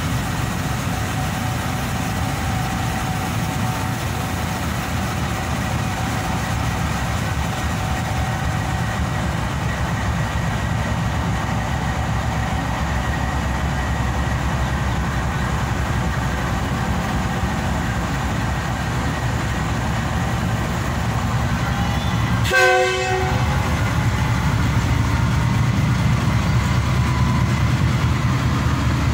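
GEU-20 (GE U20C) diesel-electric locomotive running steadily as it hauls an express train past. A short horn blast comes about three-quarters of the way through. After it the coaches' wheels on the rails get a little louder.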